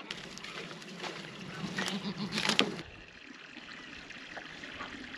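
Water sloshing and splashing in a plastic tub as it is scrubbed out by hand, with a few sharper splashes about two and a half seconds in; after that only a quieter trickle of running water.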